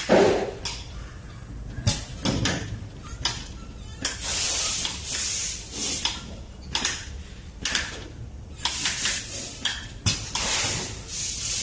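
Automatic silicone-tube O-ring cutting and bonding machine running, with repeated clacks and knocks of its moving parts and several bursts of hiss lasting about a second each, over a low steady hum. The loudest is a sharp knock right at the start.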